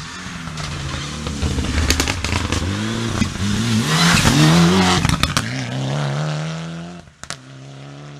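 Mitsubishi Lancer Evolution rally car's turbocharged four-cylinder engine coming on hard and passing close at full throttle, its pitch climbing through quick gear changes, with a few sharp cracks. Near the end it drops away to a quieter, distant engine.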